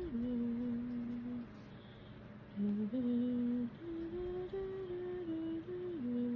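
A woman humming a slow, wordless tune with long held notes that step between pitches, breaking off briefly about two seconds in before resuming.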